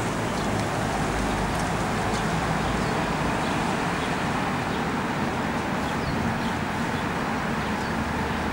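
Steady road traffic noise, with faint short high chirps now and then.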